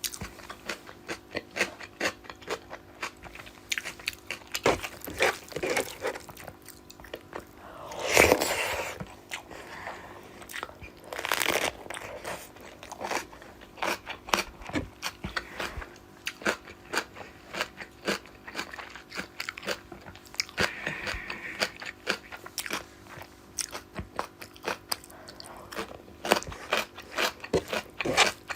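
Close-miked eating: steady crunching and chewing of fish curry with rice and fried vegetables, many quick wet mouth clicks, and two louder crunches about eight and eleven seconds in.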